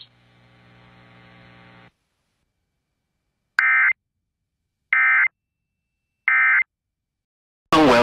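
Three short identical bursts of warbling EAS digital data tones (SAME code) spaced a little over a second apart: the End-of-Message signal that closes an emergency alert broadcast. Before them there is a faint steady hum for about two seconds.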